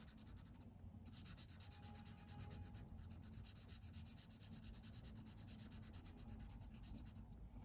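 Faint sound of a felt-tip marker colouring in on paper.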